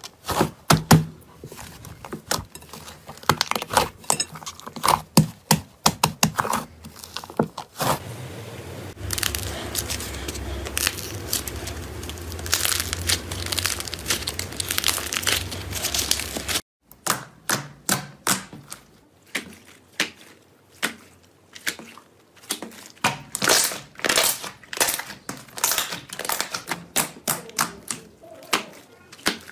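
Slime being kneaded, pressed and stretched by hand, making quick irregular pops and crackles as trapped air bursts. For several seconds in the middle the pops give way to a steady noise, which stops abruptly.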